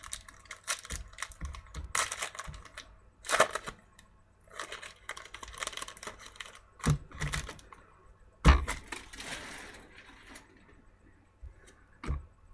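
Trading cards and packs being handled on a table: irregular clicks, taps and rustling, with a sharp knock a little over eight seconds in followed by about a second of crinkling.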